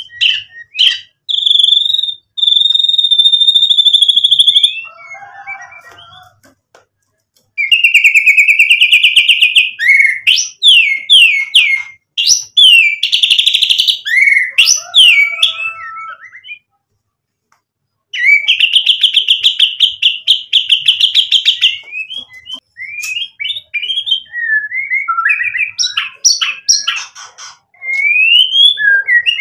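Male white-rumped shama singing a loud, varied song. Long, fast rattling trills alternate with quick rising and falling whistled notes, with a pause of a second or so just past the middle.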